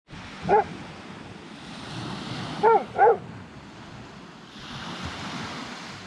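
A dog barking three times, once about half a second in and then twice in quick succession near three seconds, over the steady wash of sea surf.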